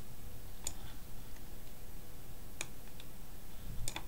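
A few sharp, isolated clicks, spaced a second or more apart, the last a quick pair, over a faint steady hum.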